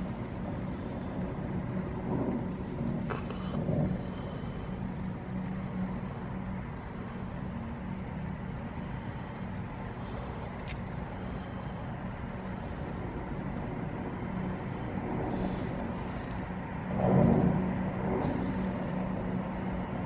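Distant city traffic, a steady rumble under a constant low hum, with one louder swell near the end.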